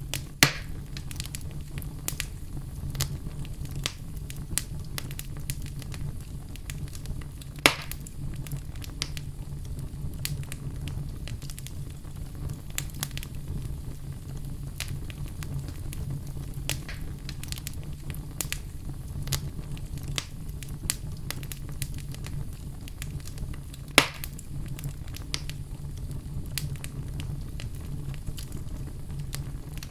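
Fire burning in a fireplace: a steady low rumble under frequent small crackles. Three sharper, louder pops stand out, one near the start, one about eight seconds in and one at about 24 seconds.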